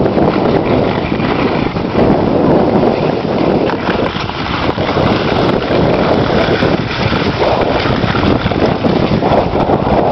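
Loud, steady wind buffeting a moving microphone as a skier glides down a groomed run.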